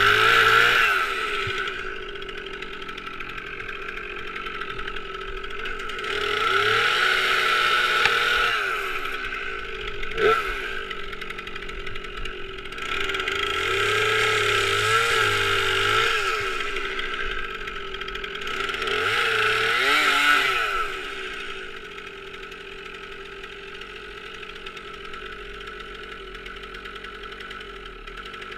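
Stihl MS 362 two-stroke chainsaw throttled up four times for several seconds each, dropping back to a lower speed between, then running steadily at idle for the last several seconds. There is a single sharp tick about ten seconds in.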